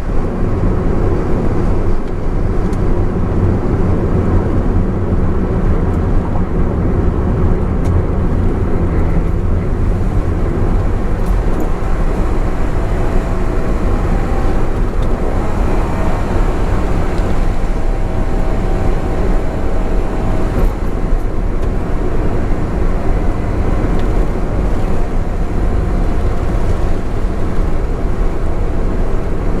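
Steady in-cabin road and engine noise of a Honda S660 cruising at expressway speed: tyre roar with the hum of its 660 cc turbocharged three-cylinder engine.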